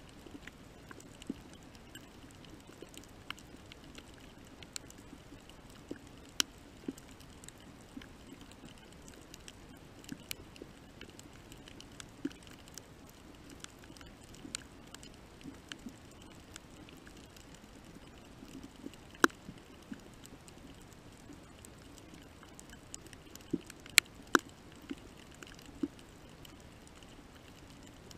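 Underwater coral reef ambience: a steady low hum with scattered sharp clicks and crackles. The loudest snaps come about six seconds in, about nineteen seconds in, and as two close together about four seconds before the end.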